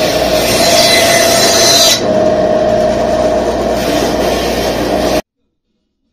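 Band saw running and cutting through wooden boards: a steady hum with the hiss of the blade in the wood. The higher hiss drops about two seconds in, and the sound cuts off suddenly after about five seconds, leaving silence.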